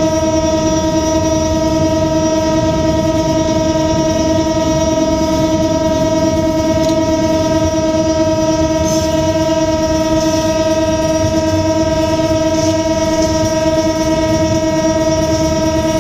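Diesel locomotive horn held in one long unbroken blast, a steady unwavering chord, over the low rumble of the engine and wheels on the track. It is sounded to warn people and vendors off the rails as the train runs through a market built on the line.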